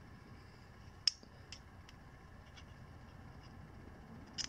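A few light clicks and taps as metal motorcycle camshafts and a digital caliper are handled and the caliper jaws are set on a cam lobe, with one sharper click about a second in, over quiet room tone.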